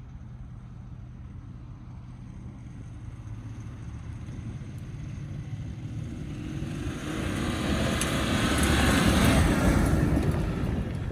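GMC AT4 pickup with the 3.0-litre diesel, running off-road. Its low steady engine sound swells into a loud rush of engine and road noise from about six seconds in, peaks near nine to ten seconds, then eases off.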